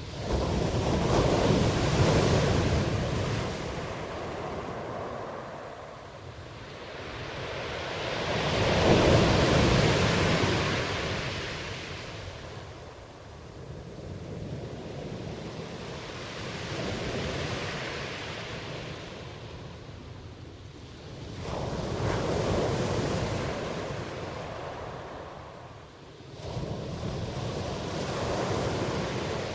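Rain driven by gusting wind, a rushing hiss that swells and eases in long surges every five to eight seconds.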